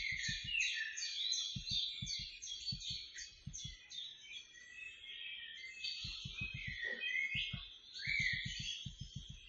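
A dense chorus of high, rapid chirping bird calls from a mixed nesting colony of storks, cormorants and herons. Short bursts of low, rapid pulsing come and go beneath it.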